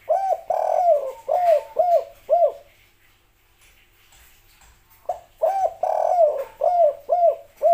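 Spotted dove (tekukur) cooing: two phrases about five seconds apart. Each is a short note, then a longer drawn-out coo, then three short arched coos.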